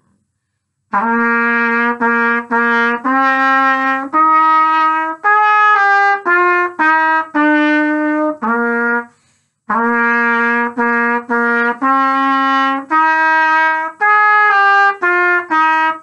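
Solo trumpet playing a short beginner-band melody of detached and slurred notes, starting about a second in. After a brief pause near the middle, the trumpet plays the same phrase again.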